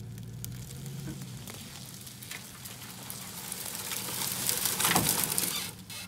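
Footsteps crunching and rustling through dry grass, dead leaves and brush, getting louder about four seconds in, over a low steady hum from the idling pickup truck's engine.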